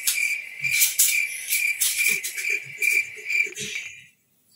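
Cricket-chirp sound effect: a high, even chirp repeating about four times a second, which cuts off about four seconds in.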